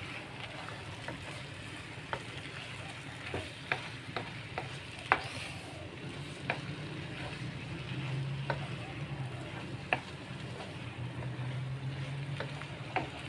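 Mee goreng noodles and Chinese spinach being stir-fried in a pan: a steady sizzle under a dozen or so irregular sharp clacks of the spatula against the pan as the food is tossed.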